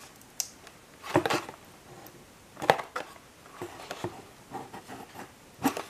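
Clear plastic blister pack on a diecast car's card being handled and tilted in the hands, giving a scattering of light clicks, taps and crackles from the plastic and cardboard.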